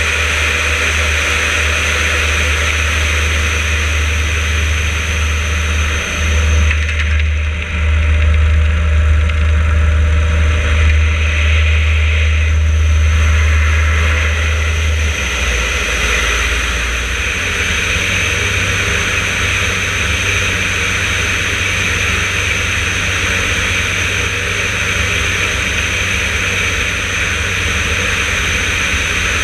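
Yakovlev Yak-52's nine-cylinder radial engine and propeller running in flight, heard from a wing-mounted camera with steady wind rush over the microphone. It is loudest a quarter of the way in, and the low engine note changes about halfway through.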